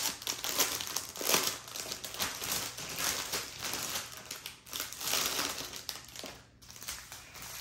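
Clear plastic bag of diamond painting drill packets crinkling and rustling as it is handled, dropping away briefly near the end.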